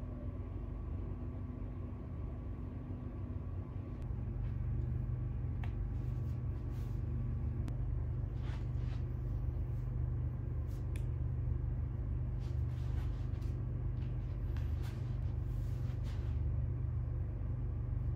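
Steady low rumble and hum, growing a little stronger about four seconds in, with a few faint clicks.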